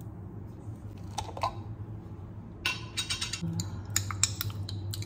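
A spoon clicking, tapping and scraping against a dish and plate while sambal is served, in a quick cluster of small clicks over the second half, over a low steady hum.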